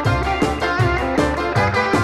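Background music with a quick, steady beat and a pitched melody over it.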